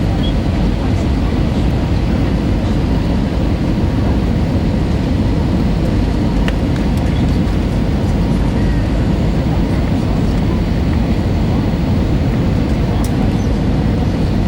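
Steady cabin noise inside an Airbus A320 airliner, heard from a seat over the wing: the rumble of its CFM56 turbofan engines and the airflow, even and unbroken, with a faint steady whine.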